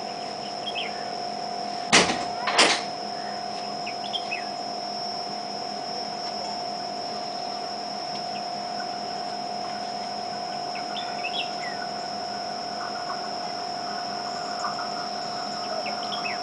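A steady mechanical hum with a high whine runs throughout. Two sharp clicks come about two seconds in, and small birds chirp now and then.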